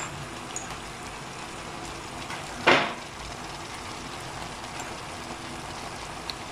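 Bell pepper strips and sausages sizzling steadily in a frying pan, cooking in the peppers' own juices. About three seconds in comes one brief, loud rustling burst.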